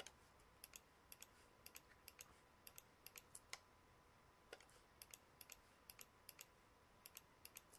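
Faint clicks of a computer mouse and keyboard: the Shift key and right mouse button pressed over and over to select faces, heard as short sharp clicks, mostly in quick pairs, roughly one pair a second.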